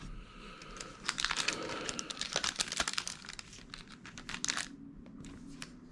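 Crinkling and rustling of trading cards and plastic packaging being handled, with a dense run of quick clicks for about three and a half seconds that dies down near the end.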